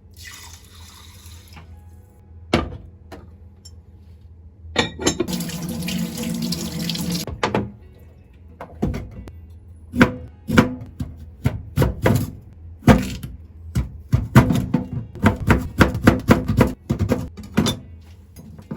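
Kitchen sink tap running for a couple of seconds, then a quick run of knocks, clatters and splashes as something is washed in the sink, over background music.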